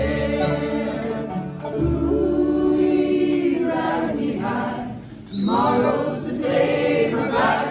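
A bluegrass band of banjo, acoustic guitar, mandolin, fiddle and upright bass, with several voices in harmony, holding the song's final chord, which ends about five seconds in. The audience then cheers and yells.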